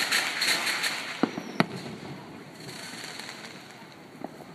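Aerial fireworks: crackling from a bursting shell, then two sharp bangs about a second and a half in, the second the loudest. Fainter crackling follows, with a single pop near the end.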